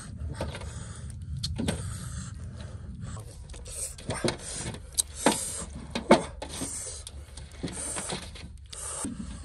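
Wet squelching and smacking as bare hands rub and squeeze a chili marinade into a pig's leg on a metal tray, in irregular squishes with a couple of louder smacks about five and six seconds in.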